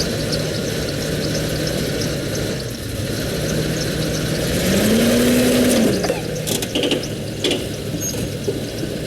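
Bus engine running, revved briefly about halfway through and then easing back, followed by a few sharp clunks as the raised bus is driven off its supports.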